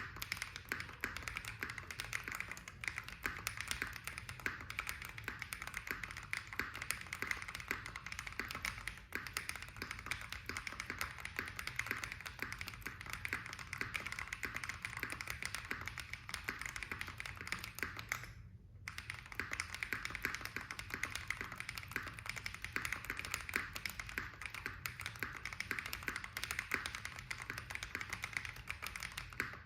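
Continuous fast typing on a custom mechanical keyboard with a Tofu65 acrylic case, brass plate, Krytox 205g0-lubed Holy Panda tactile switches and Cherry screw-in stabilizers, resting on a desk mat. The keystrokes come as a dense, even stream of clicks, with one short break about two-thirds of the way through.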